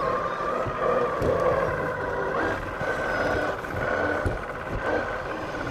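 Radio-controlled rock crawler's electric motor and gears whining as it drives, the whine stepping up in pitch a little before halfway and holding there.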